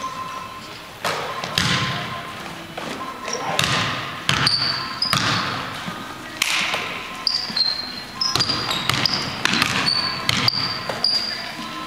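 Basketball bouncing on a hardwood gym floor in irregular thuds, with short high squeaks from sneakers on the floor, all echoing in the large hall.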